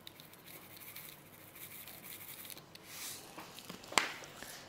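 Faint rustling and pattering of sesame seeds being shaken from a plastic spice shaker, with hands handling the shaker, and one sharp click about four seconds in.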